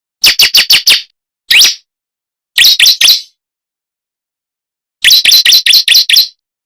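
Bar-winged prinia (ciblek) calling in quick runs of sharp chirps: five fast notes, then a single note, then three, then a run of about seven near the end. This is a ciblek lure call, played to make wild birds answer.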